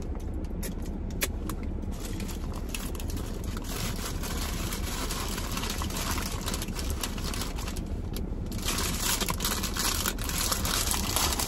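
Close-miked eating of a large sandwich: chewing and the crinkling of its paper wrapper, a dense run of small clicks and crackles over a steady low hum, busier for the last few seconds.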